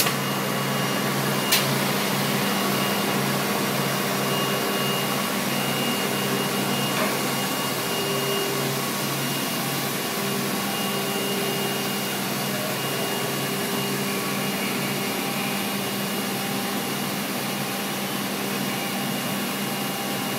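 Verville shavings bagging machinery running: a steady rushing noise with a low hum and a thin high whine, and a single sharp click about a second and a half in.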